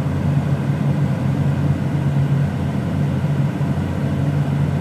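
Case IH Magnum 340 tractor's six-cylinder diesel engine running steadily.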